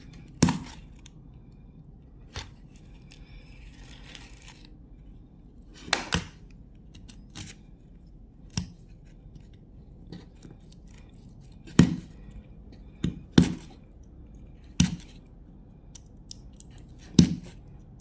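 A blade scraping agarwood by hand. About a dozen short, sharp scraping strokes come at an uneven pace, a second or more apart, with one softer, longer rasp a few seconds in.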